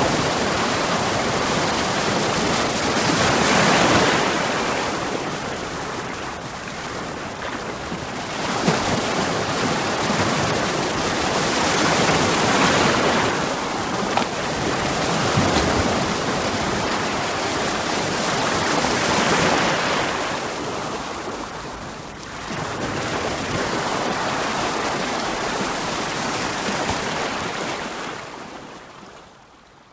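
Sea waves breaking on rocks, a continuous rush of surf that swells and eases several times. It fades out near the end.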